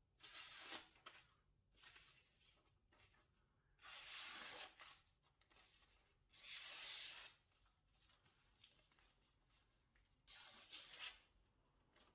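Freshly sharpened deba knife slicing through sheets of paper in about four quick hissing strokes a few seconds apart: a paper-cutting test of the edge's sharpness.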